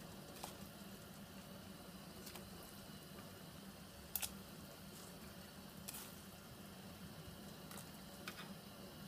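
Faint steady hiss of water heating toward the boil in a stainless saucepan, with soft plops and taps as balls of pounded marrow seed are set into the water one at a time, several times. The loudest comes about four seconds in.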